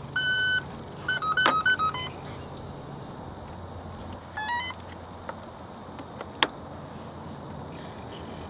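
Electric RC plane's speed controller beeping through its brushless motor as the flight battery is connected: one long tone, a quick run of tones stepping up and down about a second in, then short rising tones about four seconds in that signal it is armed. A single sharp click about six seconds in.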